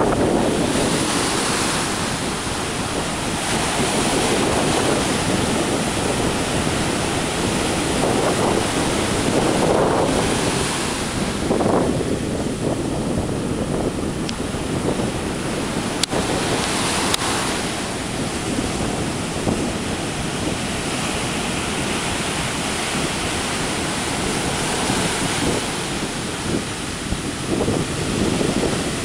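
Ocean surf breaking and washing in continuously, swelling every several seconds as waves come in, with wind buffeting the microphone.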